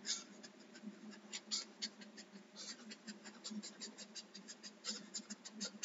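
Felt-tip marker drawing a jagged line on paper: a faint run of short scratchy strokes, several a second, each zigzag of the tip a separate scratch.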